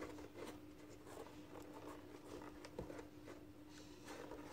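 Faint rustling and small scrapes of T-shirt yarn being handled as a crochet hook is pushed through the stitches of a basket's top edge, over a faint steady hum.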